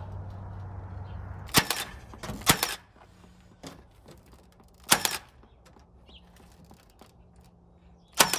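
Cordless nail gun firing nails into a wooden window frame: four sharp, doubled cracks a second or more apart. A low hum stops just before the first shot.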